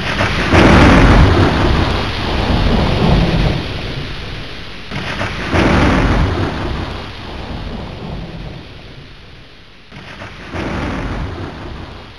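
Thunderstorm: rolling thunder over steady rain, with three big claps about five seconds apart, each rumbling away over a few seconds, the first the loudest.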